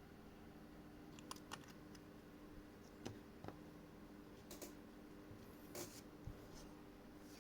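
Faint, scattered small clicks and light scrapes of tools handling a wristwatch at a workbench, about seven in all, over a low steady hum.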